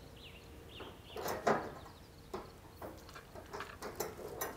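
Light metal clicks and taps of small hardware being handled while a stainless handle is fitted to a pellet grill's steel lid: a few scattered knocks, the loudest about a second and a half in.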